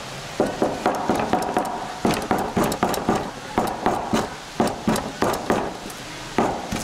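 Kitchen knife chopping live octopus on a cutting board to make tangtangi: quick, uneven blows, about three or four a second, starting about half a second in.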